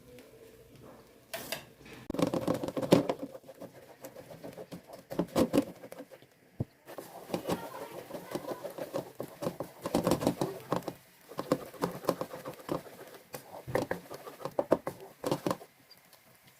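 Kitchen utensils knocking and scraping in irregular bursts, with short gaps between them.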